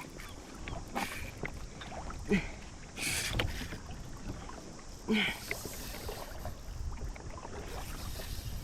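Small sounds of a fishing kayak on the water while a fish is being fought: water moving against the hull and small knocks, with a short rush of noise about three seconds in.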